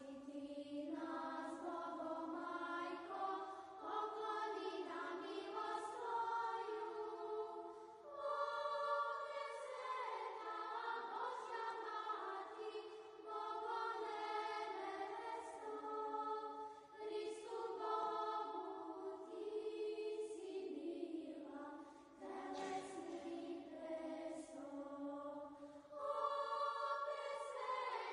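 Choir singing a slow Orthodox hymn to the Mother of God, sustained sung chords in phrases with short breaks between them.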